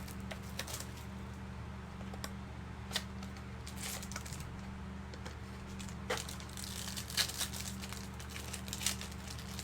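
Light rustling and crinkling with a few soft clicks from handling trading card packaging and cards, over a steady low electrical hum.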